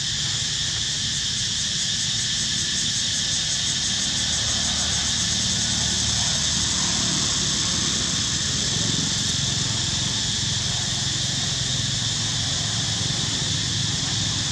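Steady, high-pitched insect chorus with a continuous low rumble underneath.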